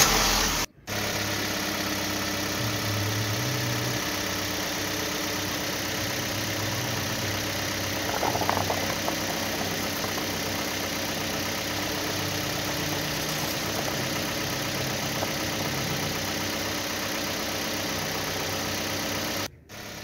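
Truck engine sound effect running steadily at an even pitch, as for a vehicle driving. It starts suddenly about a second in and cuts off near the end.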